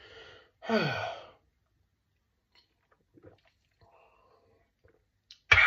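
A man's short wordless vocal sound, falling in pitch, about a second in. Then a quiet stretch with a few faint ticks while he drinks from a glass, and a loud breathy exhale near the end.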